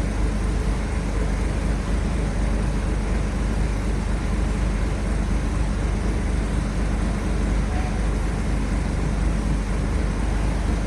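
Heavy vehicle running steadily: a constant low engine drone with road noise, with no change in pitch or level.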